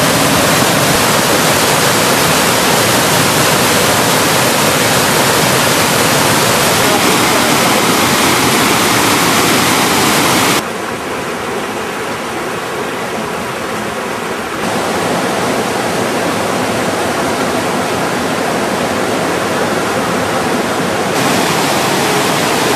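Water rushing down a small cascade over moss-covered rocks, a steady loud rush. About ten seconds in it cuts abruptly to a quieter, duller rush of more distant falling water, which steps up in level twice later on.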